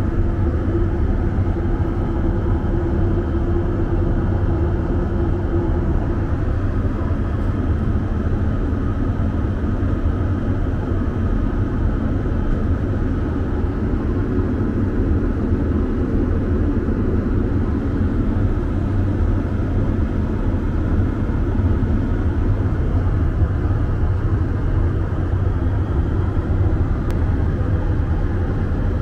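Steady low rumble of an Airbus A320's cabin noise from airflow and engines, heard inside the aircraft's lavatory. A slightly higher hum over it stops about six seconds in.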